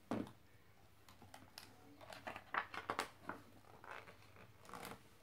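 Pages of a hardcover picture book being turned and handled: a soft thump just after the start, then an irregular run of light paper rustles and taps.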